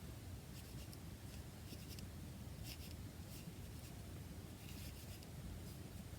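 Faint rubbing and dabbing of a wet wipe over paint on a card tag: a few soft, scratchy strokes over a low steady hum.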